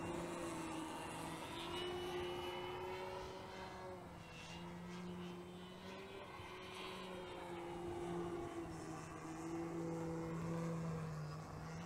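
Radio-controlled aerobatic model airplane flying at a distance, its motor and propeller making a steady drone whose pitch drifts up and down a little as it manoeuvres. It sounds healthy and smooth.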